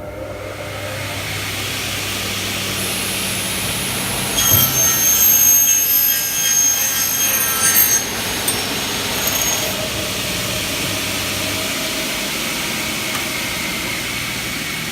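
Double-head aluminium cutting saw starting up and running with a steady hum; from about four and a half to eight seconds in its 450 mm Tenryu blade cuts through a 2.2 mm-thick Xingfa aluminium profile with a louder, high-pitched cutting sound, then the saw runs on.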